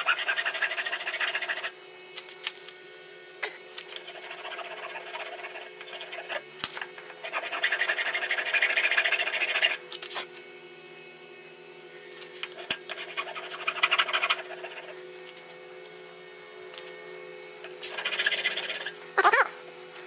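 Hand file rasping across the soft metal of a rifle's rear sight aperture, cutting a V-notch, in several spells of strokes a couple of seconds long with short pauses between.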